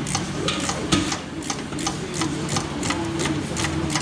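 Hand ratchet clicking in even strokes, about four to five clicks a second, as a rear motor mount bolt is run in, over a steady low hum.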